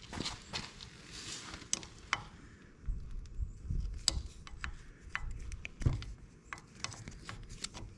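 Hand tools working at the carburetor mounting bolts of an ATV: scattered sharp metallic clicks and knocks, with some handling rumble in the middle.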